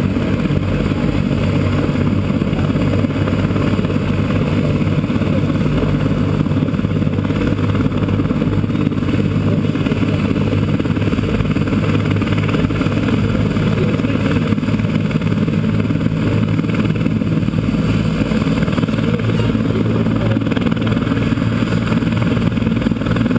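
Medical rescue helicopter running on the ground with its rotor turning: a steady, unchanging drone of rotor and turbine.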